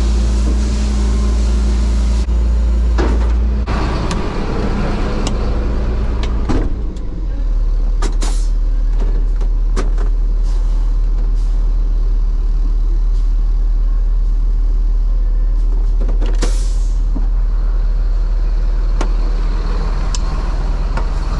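Tow truck engine running with a steady low drone that shifts in pitch between about four and seven seconds in. Scattered clicks and knocks from the cab and a brief hiss about sixteen seconds in.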